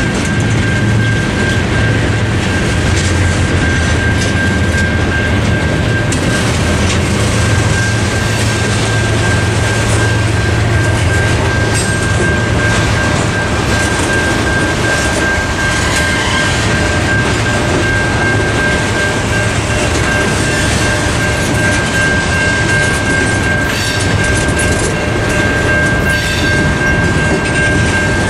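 Freight train of tank cars and covered hoppers rolling through a grade crossing, wheels clattering on the rail joints over a steady rumble. The crossing's Safetran Type 3 electronic bell rings throughout.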